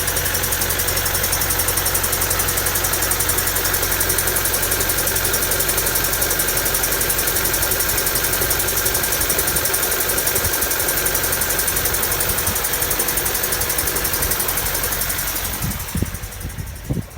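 Honda D16Y7/Y8 'MiniMe' four-cylinder idling roughly with a knock, which the owner takes for a spun bearing from too much nitrous. Near the end the engine sound drops away sharply, and two thumps follow.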